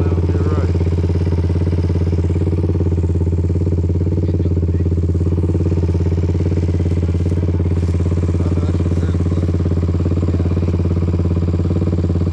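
Small off-road vehicle engine idling steadily, its pitch and loudness unchanging.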